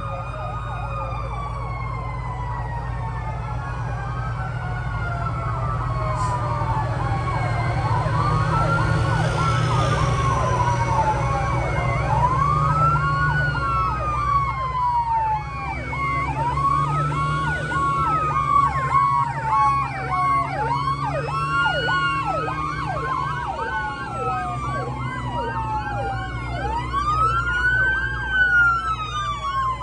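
Several fire-truck sirens wailing together, each rising and falling in pitch every few seconds and overlapping one another, over the steady low rumble of the passing trucks' engines.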